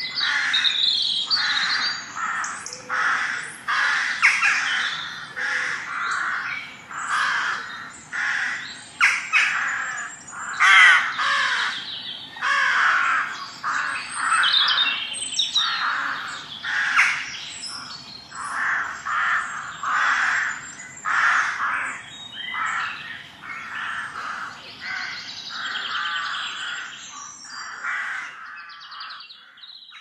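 A rookery of rooks cawing: many harsh caws from several birds overlapping, a few every second, fading out near the end.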